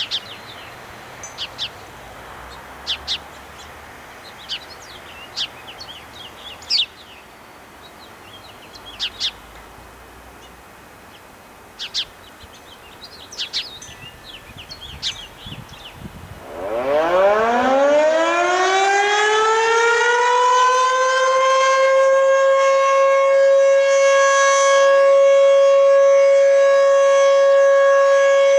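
Birds chirp in short, scattered calls for about the first sixteen seconds. Then a Federal Signal Fedelcode Model 20 outdoor warning siren starts its monthly test: it winds up in a rising whine over about five seconds and then holds a steady, loud tone at full speed.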